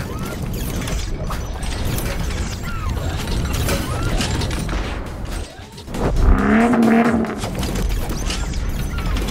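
Mechanical sound effects of a computer-animated car being assembled: a run of clicking, ratcheting and clanking over a low rumble, with a louder humming swell about six seconds in that lasts about a second.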